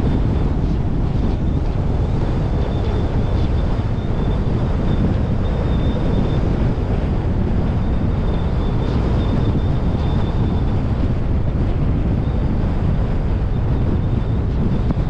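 Steady wind rush on the microphone over the rumble of a car driving, with a faint, thin high tone that comes and goes.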